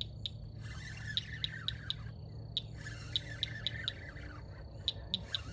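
Birds calling: runs of short, high chirps repeated about four times a second, with other warbling bird calls beneath them.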